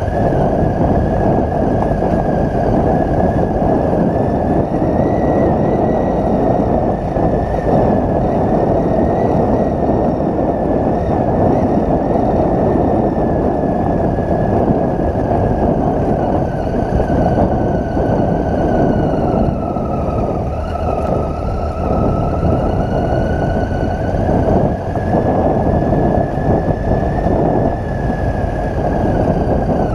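Triumph Tiger 800's three-cylinder engine running steadily as the motorcycle rides a rough dirt track, over a dense steady rumble. A thin whine in the sound sags in pitch about two-thirds of the way in, then climbs back.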